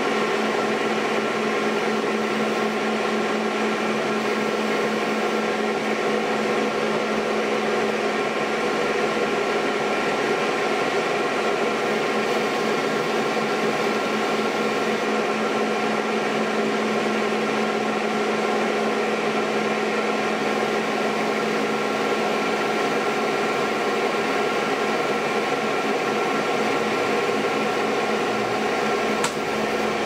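Old metal lathe running steadily, spinning a large disc in its chuck, a constant hum made of several steady tones. A faint click comes just before the end.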